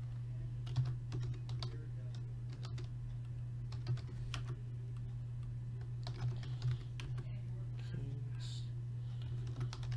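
Computer keyboard typing in irregular keystrokes, over a steady low electrical hum.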